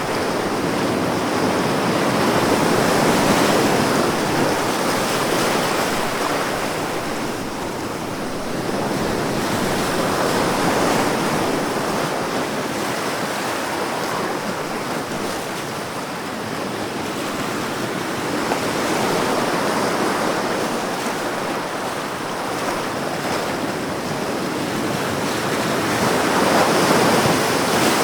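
Ocean surf, a continuous wash of breaking waves that swells and eases in slow surges about every eight seconds.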